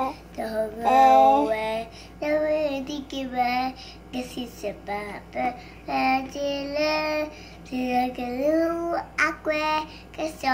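A young girl singing solo, in short phrases of held notes that bend in pitch, with brief pauses for breath between them.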